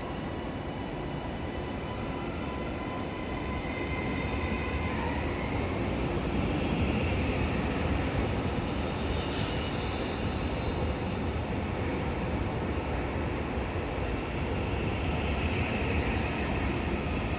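Class 331 electric multiple unit departing from the platform: a steady electric whine that steps up in pitch about five seconds in, over the rumble of the train, which grows louder as it gets under way.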